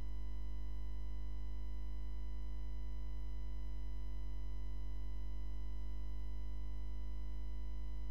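Steady, unchanging electronic hum: a low drone with several faint constant tones above it, with no change or break.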